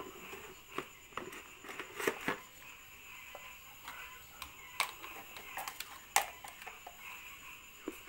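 Scattered light clicks and taps, the loudest about six seconds in, from wire ends being handled and connected at a washing machine spin-dryer motor and its capacitor.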